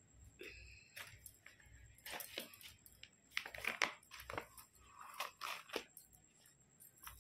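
Clear plastic zip pouches crinkling and rustling as they are handled, in irregular crackly bursts that grow busier after the first couple of seconds.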